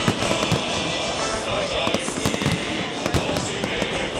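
Aerial firework shells bursting in a dense barrage: many sharp bangs, several a second at irregular spacing.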